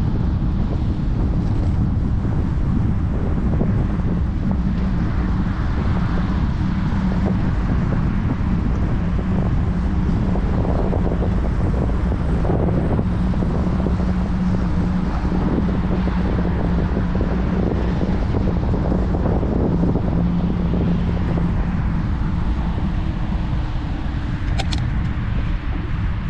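Wind rushing over the microphone and road rumble from riding a bicycle at speed. A steady low hum runs through the middle, and a single sharp click comes near the end.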